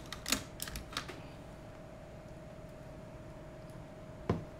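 Light clicks and taps from an FPV quadcopter frame and its wiring being handled on the workbench, several in the first second, then a single heavier knock near the end. A faint steady hum runs underneath.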